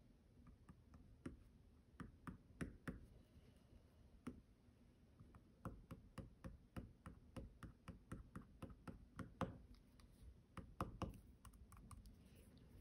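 Faint, irregular taps of a drawing tip on paper, dotting in tiny white water drops, in quick runs of several taps a second.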